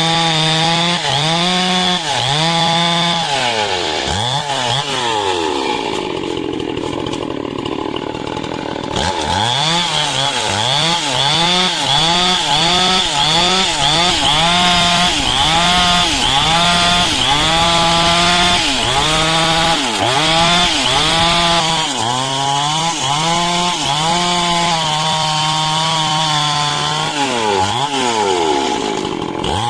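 Stihl chainsaw cutting lengthwise through coconut-palm wood, its engine running hard with the pitch rising and falling about once a second as the chain bites and frees. From about four to nine seconds in the engine eases to a lower pitch, then revs back up into the cut.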